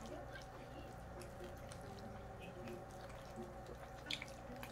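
Quiet wet eating sounds of pizza and spaghetti being chewed, with soft lip smacks and a couple of sharp clicks about four seconds in.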